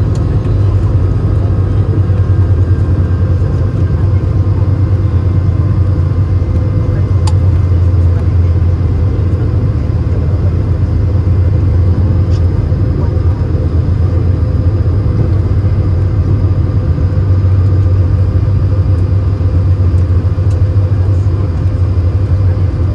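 Steady cabin rumble inside an Airbus A220 from a window seat: its Pratt & Whitney geared turbofan engines and the airflow drone at a constant pitch, with a faint steady whine above the low roar.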